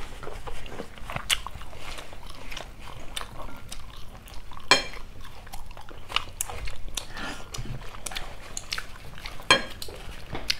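Close-miked chewing of grilled beef, with scattered wet mouth clicks and smacks; two louder clicks come about halfway through and near the end.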